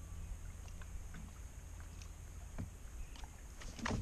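Quiet outdoor ambience: a steady low rumble with a few faint, scattered clicks and taps. A short burst of rustling and sharper clicks comes near the end.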